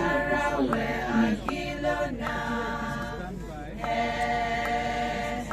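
A group of voices singing together in a chant-like style, in phrases of held notes; the longest note comes near the end.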